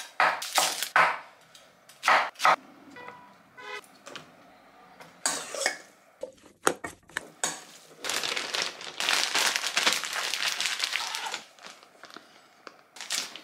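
Kitchen prep sounds: a few sharp knife chops on a wooden chopping board, a metal spoon clinking and scraping in a stainless steel mixing bowl, then several seconds of plastic zip-top bag crinkling as it is filled.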